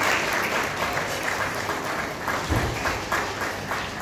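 Audience applauding, a dense spread of many hands clapping, with a short dull thump about two and a half seconds in.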